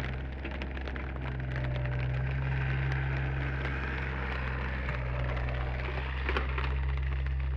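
Komatsu PC30 mini excavator's diesel engine running steadily, rising a little about a second in, with scattered crackles and ticks over it and one sharper knock about six seconds in.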